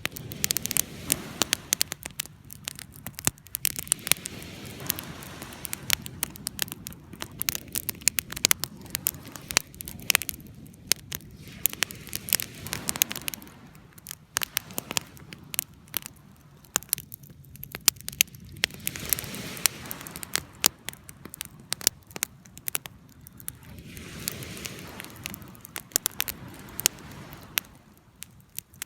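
Fire crackling, with frequent sharp pops and snaps over a low rushing that swells and fades every few seconds.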